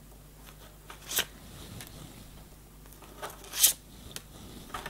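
Cards being dealt face down onto a wooden table: a few brief slaps and slides of card on wood, the sharpest about a second in and about three and a half seconds in.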